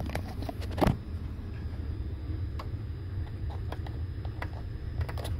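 Scattered small clicks and taps of a multimeter and its probes being handled, with one louder knock about a second in, over a steady low hum.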